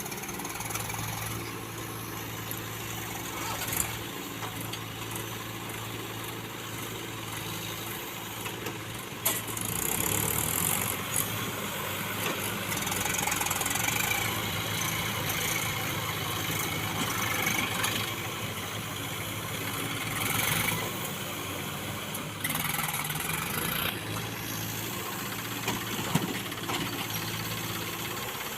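Backhoe loader's diesel engine running steadily, getting louder about ten seconds in, with a few sharp knocks and stretches of hiss.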